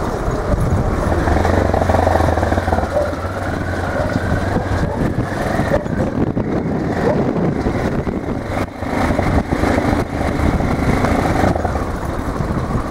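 Motorcycle engine running under way, its note rising and falling with the throttle.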